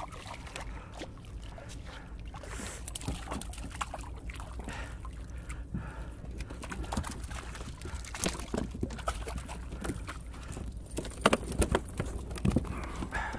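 Mackerel splashing at the surface as it is reeled in beside a kayak, then a run of small clicks, taps and knocks as the fish and fishing tackle are handled aboard, sharpest near the end, over a steady low background of water.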